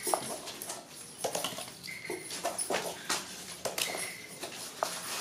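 Hands working paper rocket nose cones: light rustling and clicking of the cones, with fingers dipping into a basin of water. A short high note repeats about every two seconds.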